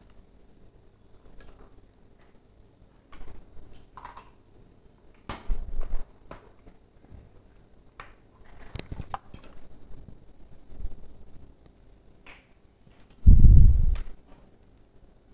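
Spatula scraping and clinking against a steel pan while stirring diced papaya and soya chunks, in scattered short strokes. Near the end there is a heavy low thump.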